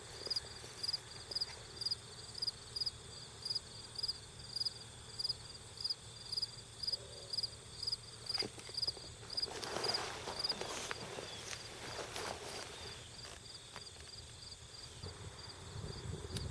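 An insect chirping steadily at a high pitch, about two chirps a second, with a single sharp click and a short burst of rustling noise about halfway through.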